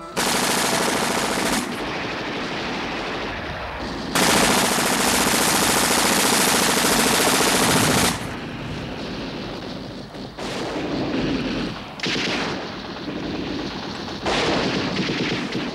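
Machine-gun fire in long, continuous bursts of rapid shots, strongest between about four and eight seconds in, with quieter bursts either side.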